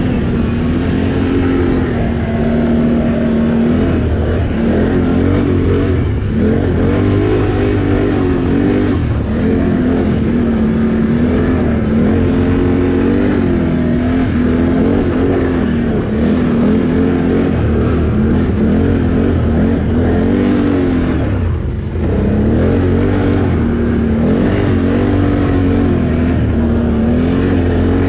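ATV engine revving up and down under throttle. Its pitch rises and falls every second or two, and it drops off briefly about three-quarters of the way through.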